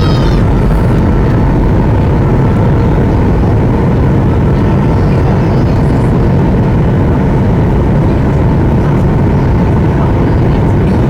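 Steady cabin noise inside a Boeing 737-800 in flight: the drone of its CFM56 jet engines mixed with rushing airflow over the fuselage, even and unchanging.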